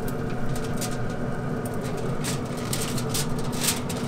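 Pit Boss Pro 1100 pellet grill's fan running with a steady hum. Metal tongs click and aluminum foil crinkles several times in the second half as a rack of ribs is laid on the foil.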